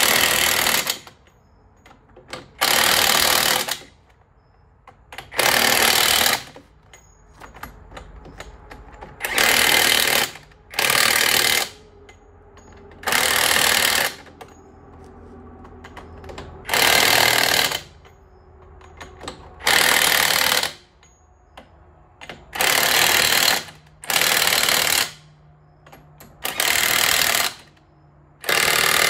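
Impact wrench hammering in about a dozen short bursts of roughly a second each, a few seconds apart, running down a semi truck's wheel lug nuts with a 33 mm socket.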